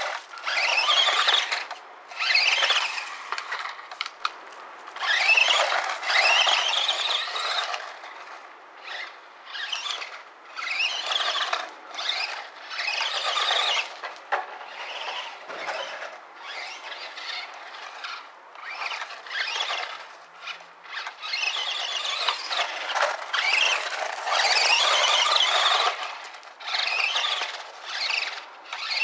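Brushed electric motor and drivetrain of a 1/18-scale HPI Maverick ION MT RC monster truck whining in repeated bursts of throttle, the pitch rising as it speeds up on each run.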